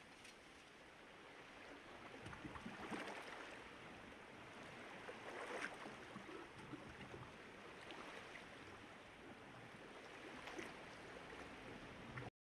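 Faint ambience of lapping water, with a few soft swells, cutting off suddenly near the end.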